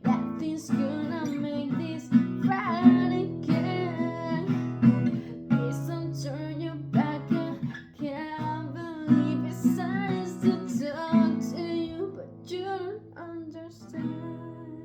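Acoustic guitar strummed with a woman singing a pop-punk ballad, both dying away near the end.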